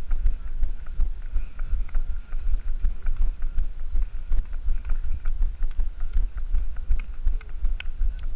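Wind buffeting the microphone of a camera carried by a running road-race runner, with the runner's footsteps thudding in a quick rhythm on asphalt.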